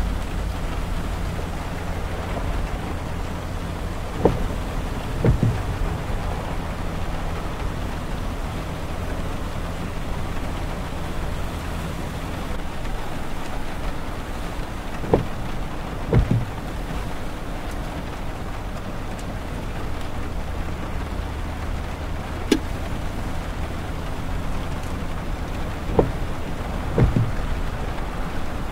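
Steady tyre and road noise from a car driving on a wet highway, heard from inside the cabin, with rain on the windshield. Every several seconds the windshield wiper sweeps, giving a pair of sharp knocks about a second apart.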